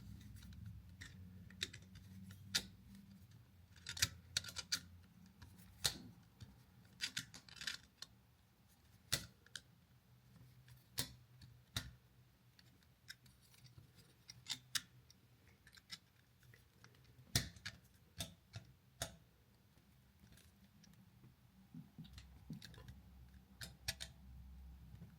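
Irregular, sharp small clicks and ticks of a screwdriver turning an outlet's terminal screw, tightening down the white neutral wire, with short pauses between.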